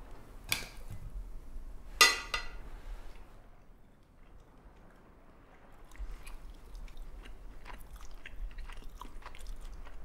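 A person biting and chewing crunchy food close to the microphone: a sharp click, a loud crisp crunch about two seconds in, then from about six seconds a run of small crunching clicks of chewing.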